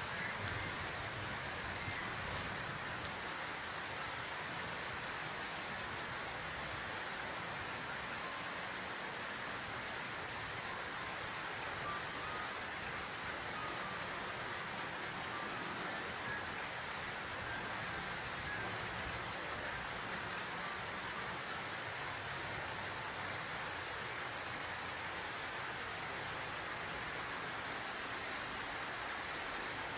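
A steady, even hiss with nothing standing out of it.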